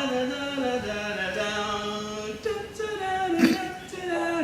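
A man singing unaccompanied, holding long notes that step up and down in pitch. A sharp click about three and a half seconds in.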